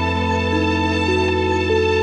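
Slow instrumental music: a steady low drone under held notes that step upward in pitch one after another.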